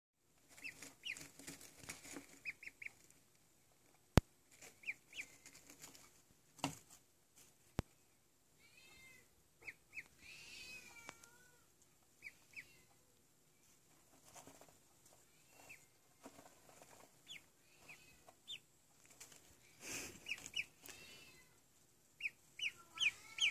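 Two-day-old duckling peeping: short high peeps, often several in quick succession, with a few wavering, gliding calls around ten seconds in. Two sharp clicks stand out, the louder one about four seconds in.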